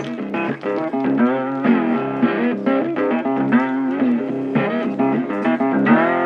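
Background music: electric guitar playing bluesy lead lines with bent notes over a bass line, ending on a held chord near the end.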